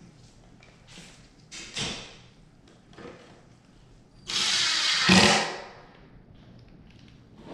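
Cordless drill driving a screw into the particleboard frame of a flat-pack furniture box: one run of about a second and a half starting about four seconds in, loudest just before it stops. A few light knocks of the wooden panels being handled come before it.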